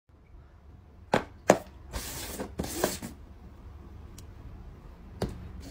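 Paper cups are tapped down onto a tabletop twice in quick succession, then slid across it with a short scraping rush, followed by a single tap near the end.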